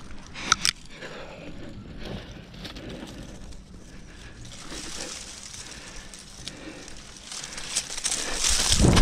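Rustling and crackling of bark, twigs and leaves as a climber moves on a tree, with two sharp snaps about half a second in. The noise swells near the end into a loud rush with a heavy low thump.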